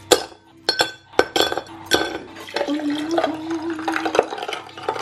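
Ice cubes dropped into a tall drinking glass, clinking sharply against the glass several times over the first two seconds. Then water is poured over the ice, a steady pouring sound as the glass fills.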